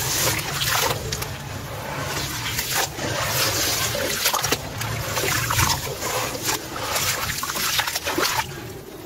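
Hands sloshing and squeezing a wet clump of sand and dirt in a basin of muddy water: continuous splashing and trickling with wet squelches, easing a little near the end.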